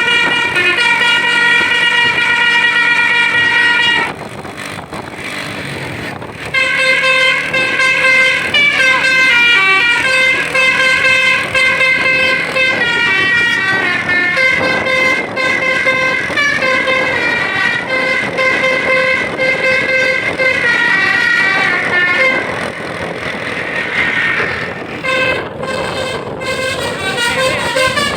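Bus 'telolet' Basuri multi-tone horn playing melodic runs of stepped notes, with a short break in the tune about four seconds in before it starts again.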